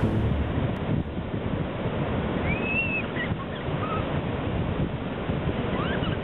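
Sea surf breaking and washing around, with wind buffeting the microphone. A few faint high gliding calls come through in the middle and again near the end.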